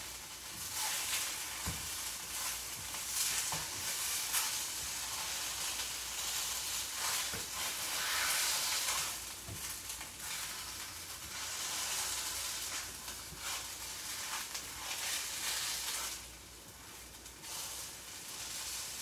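Food sizzling as it fries in oil in a pan, with a utensil stirring and scraping in the pan. The sizzle grows quieter near the end.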